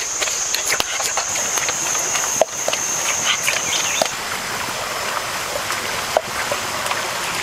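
Forest ambience: a steady high-pitched insect drone that stops about four seconds in, over a constant hiss with scattered small clicks and crackles.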